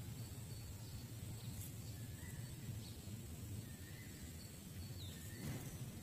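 Outdoor ambience: a low, fluctuating wind rumble on the microphone with faint short chirps every second or two, and a brief rustle about five and a half seconds in.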